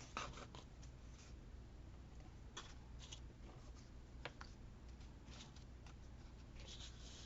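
Faint handling of paper and washi tape: scattered small clicks and short rustles, with a cluster of rustling near the end, over a low steady room hum.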